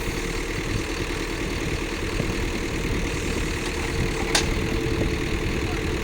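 Heavy diesel engine running steadily at idle, with one sharp click about four seconds in.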